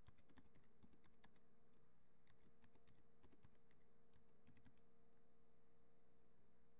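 Faint computer keyboard typing: a quick, irregular run of key clicks that stops about five seconds in, over a steady low electrical hum.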